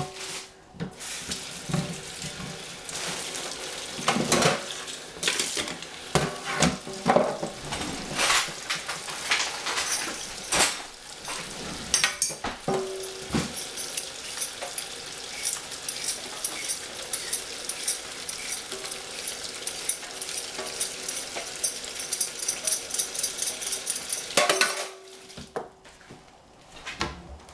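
Pots and utensils clattering against a stainless steel sink, then a quick, even run of scraping strokes for about ten seconds as a carrot is peeled over the sink.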